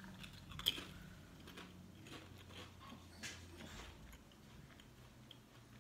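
A person chewing a potato chip: faint, scattered crunches, with a sharper crackle just under a second in and another a little after three seconds.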